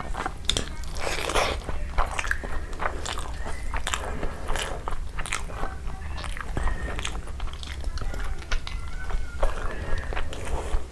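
Close-miked mouth sounds of a person eating spiced vegetable pulao and curry by hand: wet chewing and lip smacks, with many quick sharp clicks.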